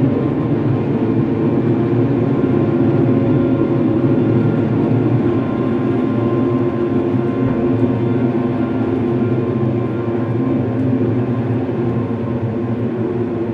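Dark ambient drone music: a steady, low bed of layered sustained tones with no beat.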